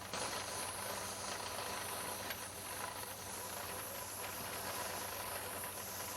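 Steam engine powering a sawmill, giving off a steady hiss of steam.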